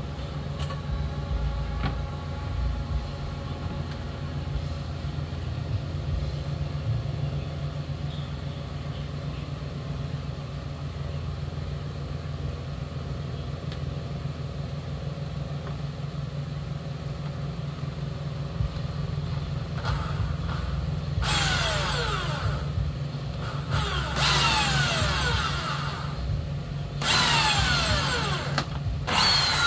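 A power drill cuts into a boat's dash in four bursts near the end, each with a falling whine. A steady low hum runs underneath throughout.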